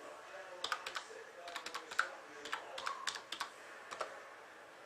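Typing on a computer keyboard: quick, irregular keystrokes, some in rapid runs with short pauses between.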